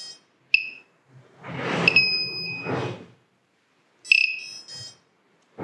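Flight controller's piezo buzzer giving short high beeps as its menu buttons are pressed, with a longer steady beep about two seconds in as the factory reset goes through. A louder rushing noise in two swells overlaps the long beep.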